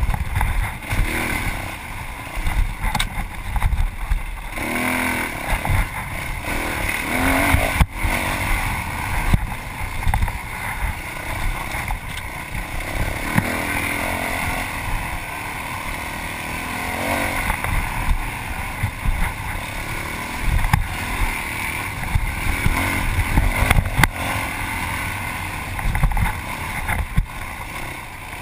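Yamaha WR450F single-cylinder four-stroke dirt bike engine under hard riding, its pitch rising and falling over and over as the throttle is worked, with a rumble of wind and ground noise on the helmet-mounted camera. There are a couple of sharp knocks.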